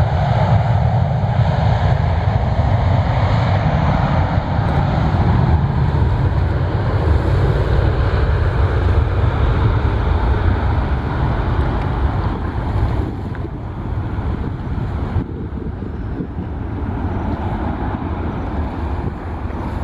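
Low rumble of an Airbus A330-243's Rolls-Royce Trent 700 jet engines as the airliner moves away, growing somewhat quieter in the second half.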